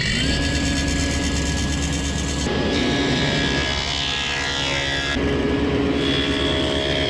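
Table saw fitted with a stacked dado blade set running steadily while cutting a dado groove in a plywood board, a continuous motor hum and whine. The sound changes abruptly twice, about two and a half and five seconds in.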